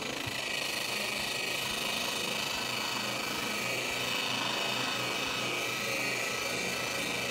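Electric right-angle polisher running steadily at low speed with a porous paint-stripping disc. The motor gives a steady whine over the scrubbing of the disc as it strips paint and primer off a steel car door panel to bare metal.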